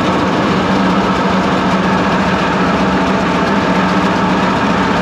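Toyota 1UZ-FE V8 jet-boat engine running at a steady speed, with a leaking exhaust.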